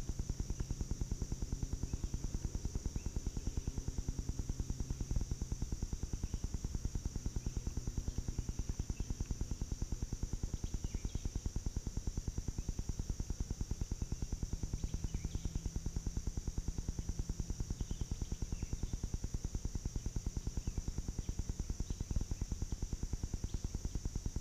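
Background music with a fast, steady pulse over a low bass line that shifts every few seconds.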